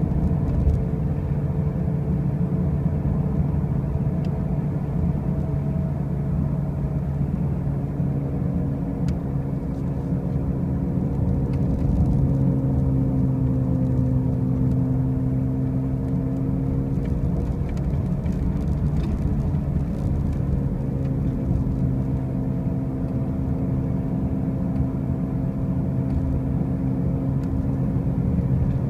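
2005 Pontiac Grand Prix driving with a loud, steady droning hum whose pitch drifts slightly up and down. The cause is unknown to the owner, who has already fitted new wheel bearings and new tires.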